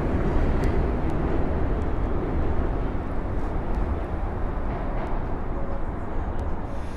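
New York City subway train pulling away along elevated track, its low rumble slowly fading as it draws off.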